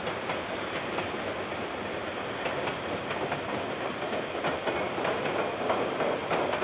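Freight train's container wagons rolling past: a steady rumble of wheels on rail with many sharp clicks, getting a little louder in the second half.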